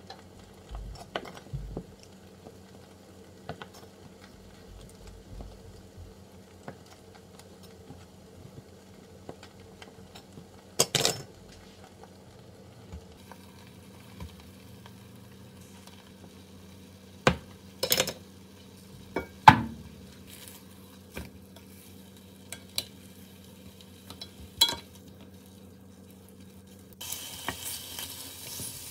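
Kitchen handling sounds: a knife cutting bread on a wooden board, then scattered sharp clinks and knocks of utensils against a bowl and pan. Near the end, thick bacon slices start sizzling in a hot rectangular frying pan as a wooden spatula moves them.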